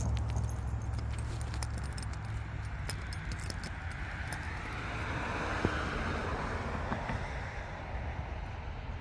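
A car passing on the road, its tyre and engine noise swelling and fading about halfway through, over light metallic jingling from the dog's harness and leash clip. A low wind rumble on the microphone fades over the first couple of seconds.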